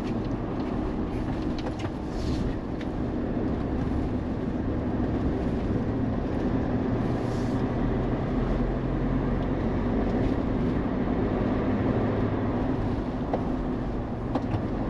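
Steady road and engine noise of a Mahindra Thar on the move, an even rumble with no marked changes.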